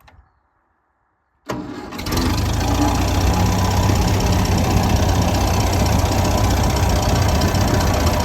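Ferguson TED20 tractor's four-cylinder petrol-paraffin engine started on its newly replaced starter switch. The starter engages about a second and a half in, the engine catches almost at once, and it then runs steadily.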